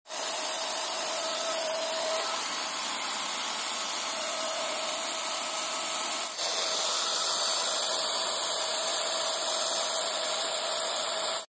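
Electric paint spray machine running steadily, its motor hum mixed with the hiss of paint spraying from the gun. The sound dips briefly about six seconds in, then carries on.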